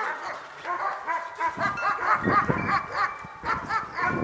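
German Shepherd puppies yipping and barking, many short high-pitched calls in quick succession, the excited noise of rough play.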